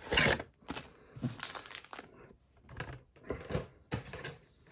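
Cardboard blaster box being opened and foil-wrapped trading card packs handled and set down: a string of short, irregular crinkles and rustles, the loudest right at the start.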